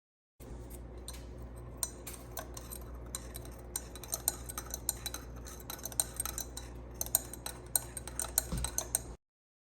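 A teaspoon stirring tea in a mug, clinking against the cup in many quick, irregular taps over a low steady hum.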